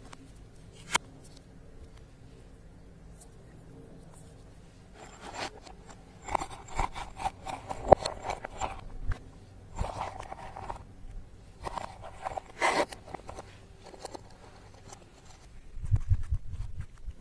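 Slime being squished and stretched by hand, giving spells of sticky crackling and popping. There is a single click about a second in and low thuds near the end.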